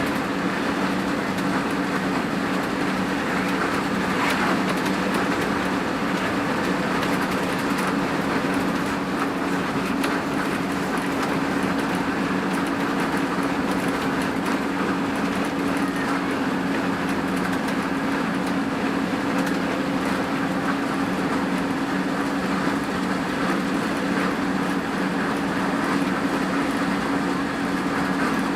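Hino RN285 bus's diesel engine running at a steady speed, a constant drone with road and tyre noise.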